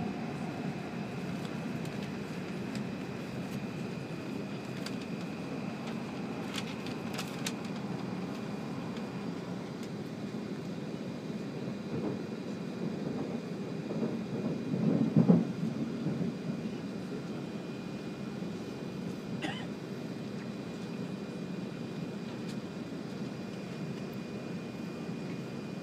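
Steady running noise of an E7 series Shinkansen, heard inside the passenger car at speed. A louder low rumble swells briefly about fourteen to sixteen seconds in, over a faint steady high whine and a few light clicks.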